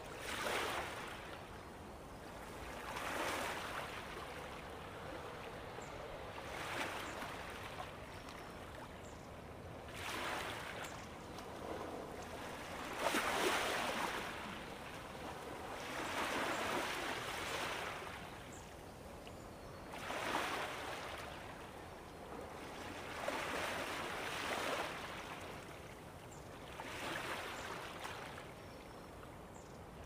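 Gentle ocean waves washing in, a soft swell of water noise rising and falling about every three to four seconds.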